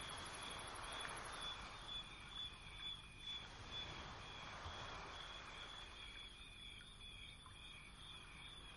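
Faint rhythmic chirping, insect-like, about two or three chirps a second, over a low steady hiss.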